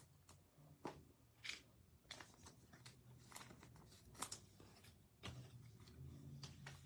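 Faint rustling and light clicks of baseball trading cards being handled and set down on a table. A low steady hum comes in about five seconds in.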